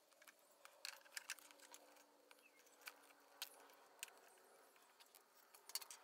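Near silence broken by a dozen faint, scattered clicks and taps: hands handling a plastic container and zip ties.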